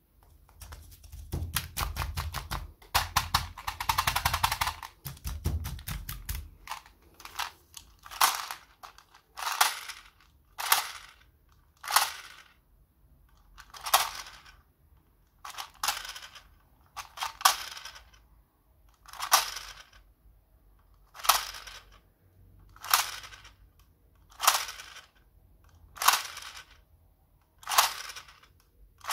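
Hands handling plastic candy packs and a plastic toy gumball machine: a dense burst of crinkling and clicking, then short scratchy taps on the plastic about every one and a half seconds.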